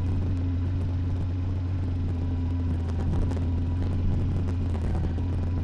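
Kawasaki Versys motorcycle engine running steadily at low revs while the bike creeps slowly downhill, a constant low hum with no revving.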